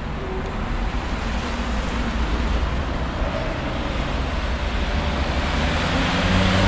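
Busy city street traffic: a steady rush of car engines and tyres, growing louder toward the end as vehicles pass closer.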